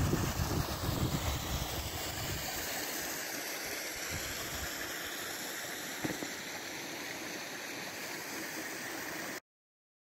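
A small brook running between snowbanks, a steady rush and gurgle of flowing water, with a low rumble in the first couple of seconds. The sound cuts off abruptly near the end.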